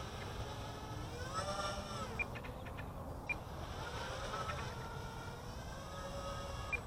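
Small quadcopter's electric motors whining in the air, the pitch rising and falling as the throttle changes, with a few faint ticks.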